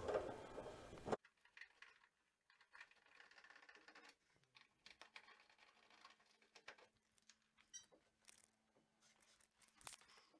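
Near silence, with a few faint clicks and taps from hands unscrewing and freeing the front casing of a wall-mounted gas boiler. A faint steady low hum runs for a few seconds in the middle.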